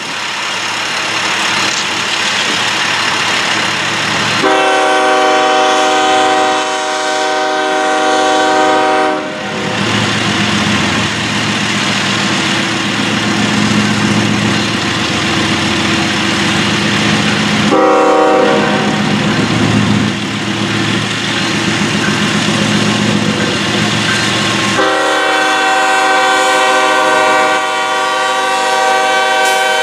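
BNSF diesel locomotive approaching a grade crossing and sounding its multi-chime air horn for the crossing: a long blast about four seconds in, a short blast near the middle, then a long blast held from about 25 seconds on. Between blasts the diesel engine and rail noise grow louder as the train nears.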